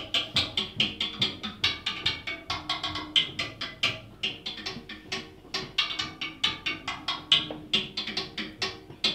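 Jazz drum kit played solo with sticks: rapid strokes across the toms and snare, with a steady run of sharp hits.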